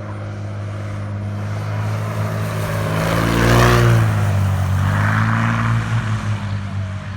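Propeller-driven light airplane flying past, its engine drone growing louder to a peak about halfway through, then dropping in pitch as it passes and moves away.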